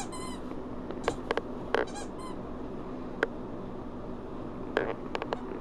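Dog chewing a squeaky ball toy: the toy squeaks in short bursts at the start and again about two seconds in, with sharp clicks of chewing between.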